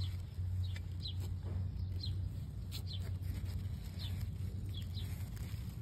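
Small birds chirping, short separate calls several times, over a steady low hum.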